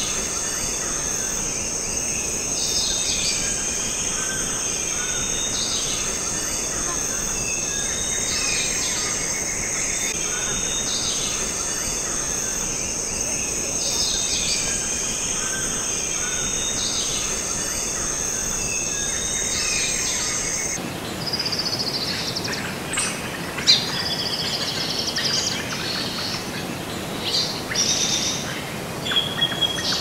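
Birds chirping and calling over a steady high-pitched drone. The drone cuts off suddenly about two-thirds of the way in, and after that the bird calls come sharper and more scattered.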